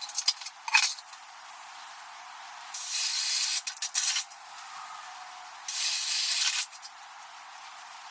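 Power drill boring holes into a 2x6 wooden board: two runs of about a second each, a few seconds apart, with a few sharp clicks in the first second.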